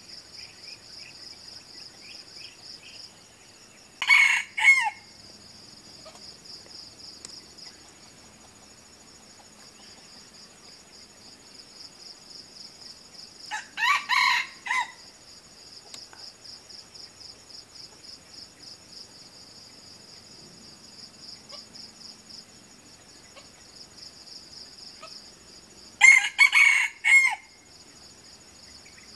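Red junglefowl roosters crowing three times, short clipped crows about ten seconds apart, over a steady high-pitched insect drone.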